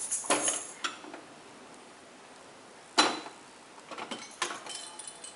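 A few sharp clinks and knocks of hard household objects, the loudest about three seconds in, with quiet room tone between them.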